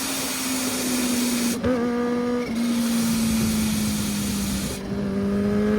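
Kawasaki Ninja H2's supercharged four-cylinder engine running, with a steady pitched drone and a higher tone that rises slowly in the last second or so, the sound changing abruptly a couple of times.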